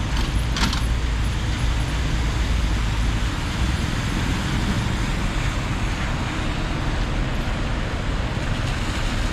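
City street traffic: a steady wash of passing cars and engines, with a heavier deep rumble for the first three seconds and a brief sharp click about half a second in.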